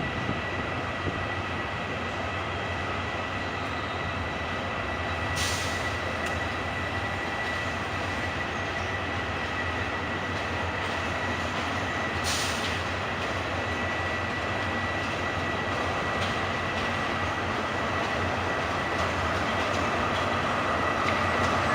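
Diesel train noise: a steady rumble with a thin, high, steady whine throughout, and two brief hissing flares about 5 and 12 seconds in.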